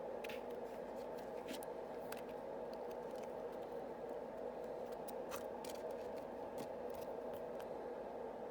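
Yu-Gi-Oh! trading cards and booster packs being handled: light, irregular clicks and snaps over a steady low hum.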